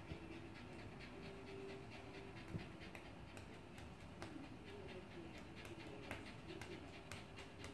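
Small white dog panting quickly and faintly, mouth open and tongue out.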